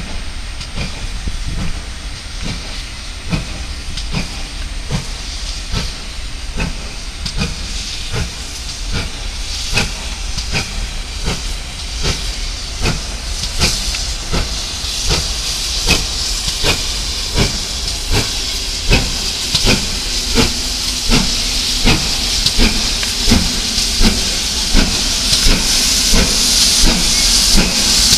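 GWR Hall class 4-6-0 steam locomotive moving slowly, with a steady run of even beats and a steam hiss that grows louder as it draws alongside near the end.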